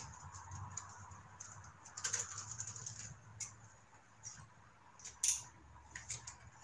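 Scattered light metallic clicks and taps of a spark plug socket and its extension working in the plug wells of a turbocharged Honda D16 engine while a spark plug is fitted. The sharpest tap comes about five seconds in, over a faint low hum.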